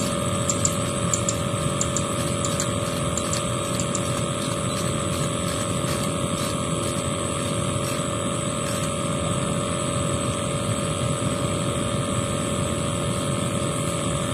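A steady mechanical drone, like a motor running at a distance, holding an even pitch throughout. Light scattered clicks come in the first few seconds.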